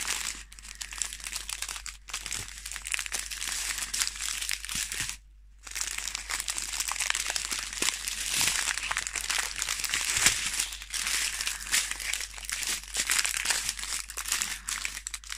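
Small plastic zip-lock bags of diamond painting drills crinkling as they are handled and sorted, with a short pause about five seconds in.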